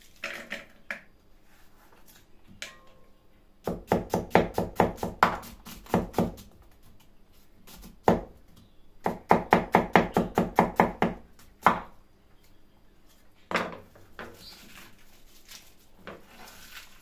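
Knife chopping an onion on a cutting board: two runs of quick, even strokes, about five a second, each lasting two to three seconds, with a few single knocks between and after them.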